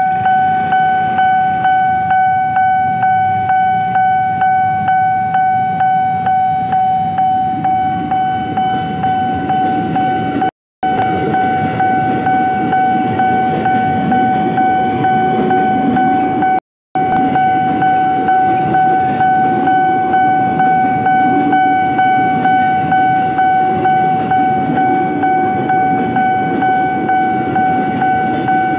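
Railway level-crossing warning bell ringing throughout with a steady, evenly repeating electronic ding. Under it, a Commuter Line electric train rumbles past over the crossing.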